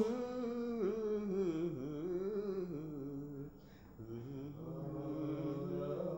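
A man chanting in a slow, drawn-out, wavering melody, holding long notes with small glides in pitch; the line breaks off about three and a half seconds in and resumes about half a second later.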